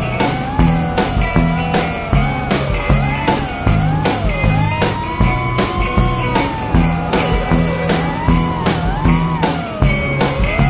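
Background rock music with a steady drum beat, bass, and a lead line that slides up and down in pitch.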